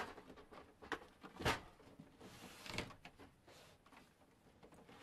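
A few knocks and clunks from the plastic body of a Canon Pixma G7020 printer being handled and shifted on a desk mat, the loudest about one and a half seconds in, with faint rustling between.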